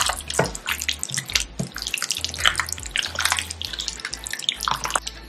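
Wet squelching of gloved hands kneading chicken pieces through a thick yogurt marinade in a glass bowl, a run of irregular squishes.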